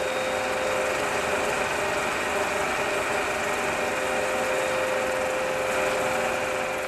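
A small engine running steadily at constant speed, a little louder after the first second and fading near the end.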